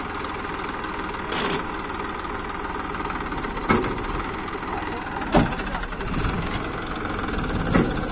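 Diesel tractor engine running steadily under load as it pulls a loaded trailer through loose sand, with three short sharp knocks spaced about two seconds apart, the last near the end.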